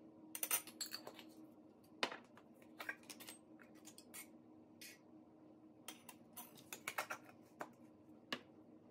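Metal measuring spoon clicking, tapping and scraping against a spice jar, a baking powder can and a glass measuring cup as spoonfuls are scooped and tipped in: scattered light clinks, busiest in a run late on, over a faint steady hum.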